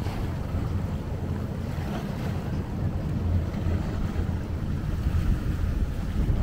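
Wind buffeting the microphone in a steady low rumble beside choppy open water.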